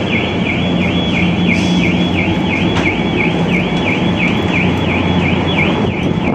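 Warbling electronic warning alarm, its pitch sweeping down and back up about three times a second, over the steady low drone of ship machinery.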